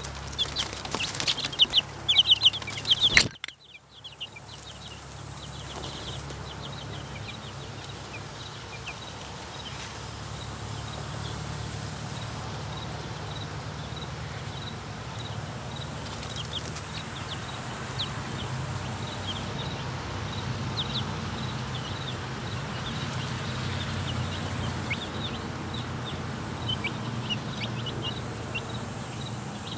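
A mixed batch of young chicks peeping, a dense, loud burst of high chirps for the first three seconds, then the sound drops out abruptly for a moment. After that, scattered fainter peeps go on over a steady low hum.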